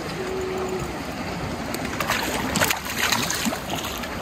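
Steady rush of wind and sea water around a small fishing boat, with a louder stretch of rushing noise about two seconds in that lasts a second or so.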